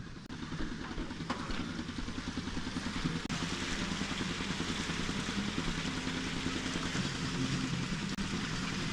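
Boat outboard motor running under way, its pitch shifting slightly now and then, with a steady rush of wind and water growing louder from about three seconds in.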